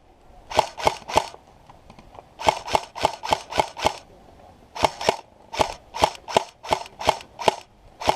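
An airsoft gun firing single shots in quick strings: three shots, then six, then eight, about three a second, each a sharp snapping crack.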